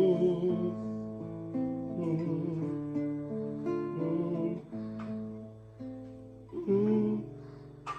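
Acoustic guitar playing a slow instrumental passage of a Persian pop song, with sustained plucked and strummed notes changing every half second or so.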